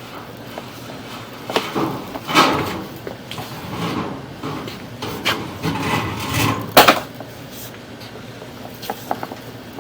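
Irregular knocks and scraping from equipment being handled, with one sharp knock about seven seconds in.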